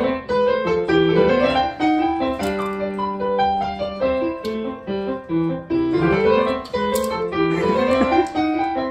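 Background music: a piano tune playing a melody of held notes.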